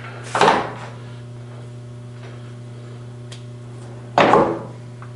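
Two short clunks, about half a second in and again about four seconds in, as the speed and feed levers on a Kingston HQ1000 lathe headstock are shifted during setup, over a steady low hum.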